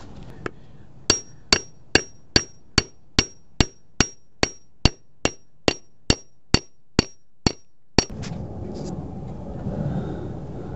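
A hammer striking metal in a steady rhythm, about seventeen blows a little over two per second, each with a short metallic ring, tapping a metal sleeve into the eye bushing of a gas shock absorber. The blows stop about eight seconds in.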